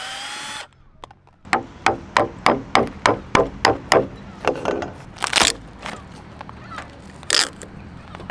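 Power drill whining and stopping, then a run of sharp blows on wood, about three a second, thinning into scattered knocks with two louder cracks later on: rotten wood being knocked out of a wooden boat beam.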